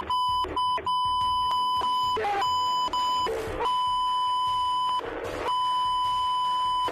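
Censor bleep: a steady beep tone covering a NASCAR driver's swearing on team radio. It is broken several times by short snatches of his shouting voice.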